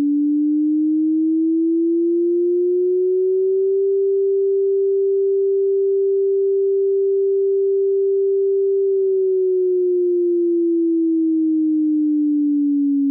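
Computer-generated tsunami warning siren: a single pure tone that rises slowly in pitch for about four seconds, holds steady, then falls slowly back down near the end.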